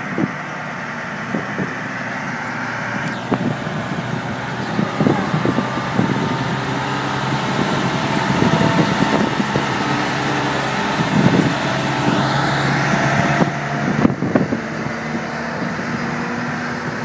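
Trepel Challenger 700 aircraft tow tractor's engine running as it drives slowly, a steady engine note that grows louder toward the middle. A brief rising whine comes about three-quarters of the way through.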